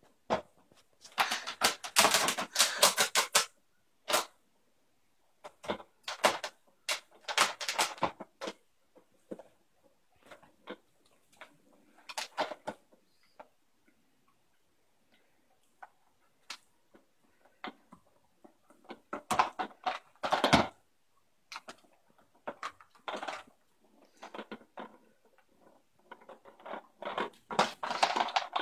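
Plastic treat-dispensing puzzle feeder rattling and clattering as a puppy works at it to get treats out. The clatter comes in repeated bursts of quick clicks with short quiet pauses between them.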